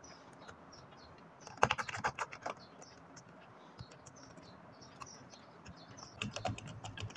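Small clicks and taps of hand work connecting a phase wire to the light on a switch board, in two short clusters, about one and a half seconds in and again about six seconds in.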